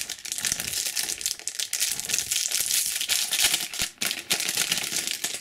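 Foil trading-card booster pack crinkling and crackling as it is handled and torn open by hand, with a brief pause about four seconds in.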